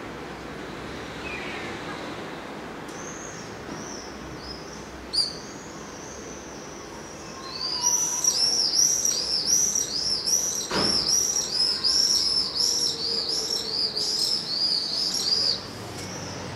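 Young gulls calling: a rapid run of high-pitched, arched peeping notes, about two a second, that starts about halfway through after a few fainter calls. A single sharp click sounds about five seconds in.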